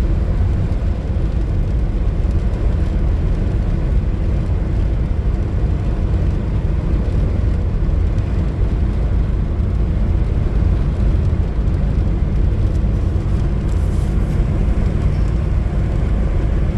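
2000 Nissan Frontier XE pickup on the move, its four-cylinder KA24DE engine and road noise making a steady low rumble.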